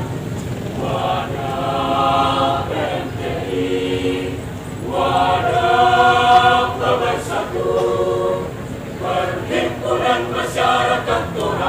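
A choir singing in parts, held chords in phrases of a second or two with short breaks between them.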